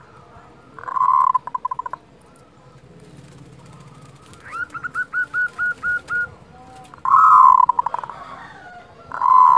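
Zebra dove (perkutut) calling in its 'kerot' song: a short trilled coo about a second in, a run of about eight quick even notes around five seconds in, then a louder trilled coo near seven seconds and another at the end.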